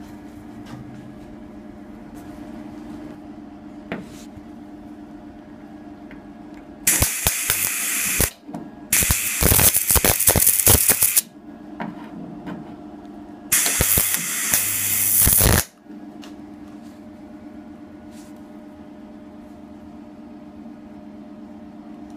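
MIG welder arc crackling and sizzling in three bursts of one to two seconds each, plug-welding holes in a steel quarter-panel patch. A steady low hum runs underneath.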